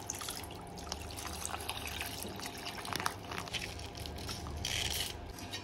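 Milk poured from a plastic milk packet into a small non-stick frying pan, a soft trickling and splashing of liquid, a little louder near the end.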